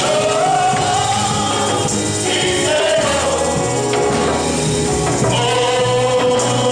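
Congregation singing a gospel praise song with a choir of voices and a tambourine keeping a steady beat.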